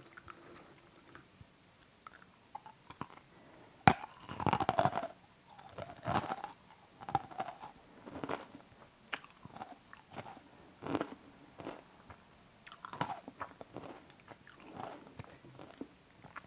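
A person biting into and chewing a crunchy nut-covered chocolate sweet: one sharp crack of the bite about four seconds in, then crunchy chewing in bursts about once a second.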